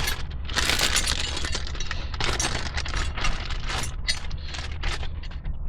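Rapid, irregular metallic clicking and clinking of small seat-latch hardware being handled, over a steady low hum.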